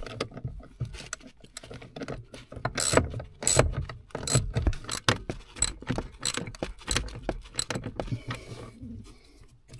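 Metal tools and bolt hardware clinking and clicking irregularly, with a few short scrapes, as a bolt and nut are worked into place by hand.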